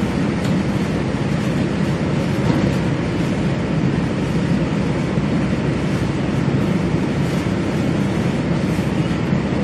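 Steady low rumble of a diesel-hauled train, heard from inside the passenger coach.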